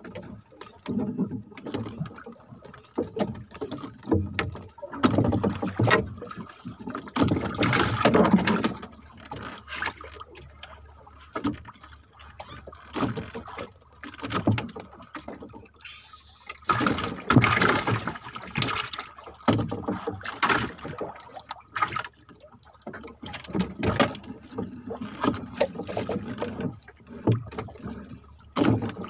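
Water sloshing and slapping against a small fishing boat's hull, with the rustle and swish of a handline being hauled in hand over hand. It comes in irregular surges, loudest twice.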